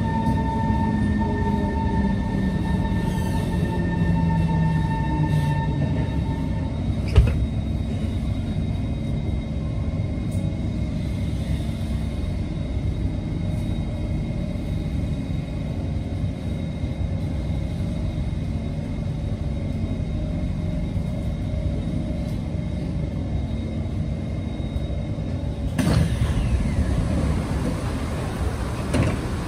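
Kawasaki C151 metro train braking into a station: its traction motors whine downward in pitch and a steady tone cuts off, followed by a single clunk as it comes to a halt. After that there is the steady rumbling hum of the train standing at the platform.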